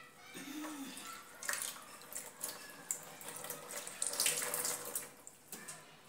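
Water splashing and sloshing in a plastic bucket in irregular bursts as a hand works in it.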